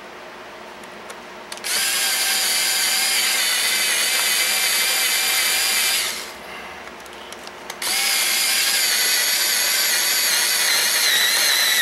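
Electric screwdriver running in two long bursts with a steady high whine, driving the dimmer switch's mounting screws home.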